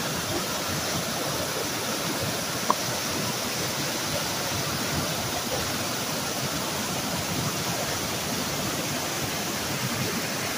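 Creek water rushing over rocks in small white-water cascades: a steady rush, with one short click about two and a half seconds in.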